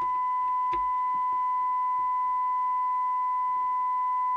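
Steady, pure test tone with a fainter overtone from a Midland 48 Plus Multi CB radio on receive. It is the signal generator's modulation tone, demodulated while the detector coil is being tuned. A faint click comes about three-quarters of a second in.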